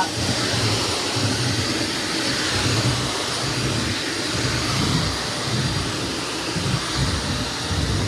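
Shark Navigator Lift-Away Professional upright vacuum cleaner running steadily while it is pushed back and forth over a hardwood floor.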